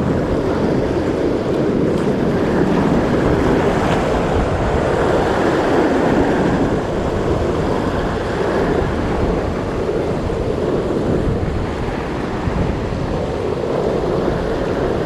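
Ocean surf breaking and washing up a sandy beach, with wind buffeting the microphone: a loud, steady rushing noise.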